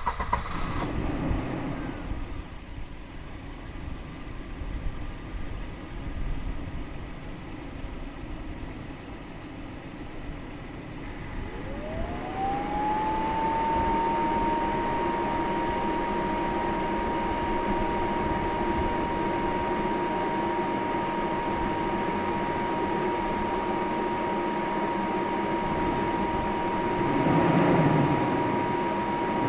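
A 1990 Volvo 240 DL engine idling, heard from outside with the hood closed. About twelve seconds in, its cooling fan starts up with a rising whine that settles into a steady high tone over the idle. Near the end the engine is briefly revved.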